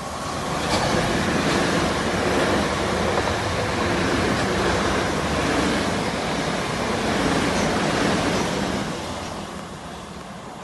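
A South Western Railway Class 450 Desiro electric multiple unit running past along the platform. A steady rush of wheels on rail and traction noise swells about a second in, holds, then fades as the train draws away.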